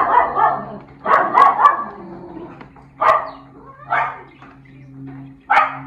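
A dog barking, a series of short barks, several in quick succession about a second in, then single barks every second or so, over a steady low hum.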